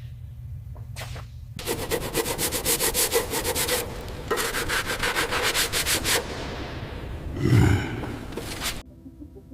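Sanding by hand in two runs of rapid back-and-forth strokes, scouring corrosion off metal parts. Near the end comes a louder swelling rush, then the scraping cuts off abruptly.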